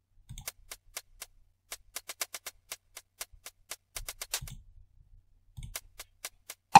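Programmed hi-hat drum loops previewing: a fast, even ticking pattern with a few low thuds, breaking off briefly about a second in as one loop gives way to another.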